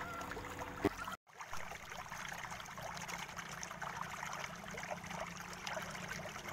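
Steady faint background hiss with light crackle and a low hum, cut off by a brief dropout about a second in.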